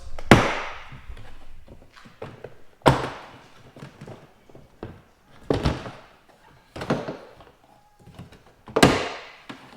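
Push-in clips of a Dodge Grand Caravan sliding-door trim panel popping loose as the panel is tugged off: five sharp thunks, one to two and a half seconds apart, the loudest at the start and near the end.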